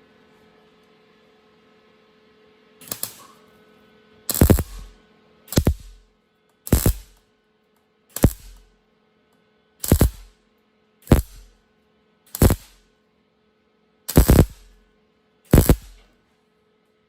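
MIG welder laying a row of short tack or stitch welds, about ten brief crackling bursts of arc roughly every second and a half, over a steady hum.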